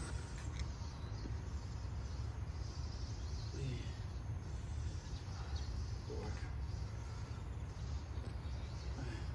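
Steady low outdoor background rumble, with a few faint short sounds about every two to three seconds.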